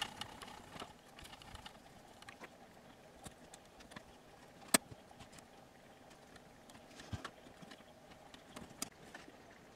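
Faint, scattered clicks and taps from a Magnavox ZV427MG9 DVD-VCR's plastic tape-loading mechanism being turned by hand, with one sharp click about halfway through.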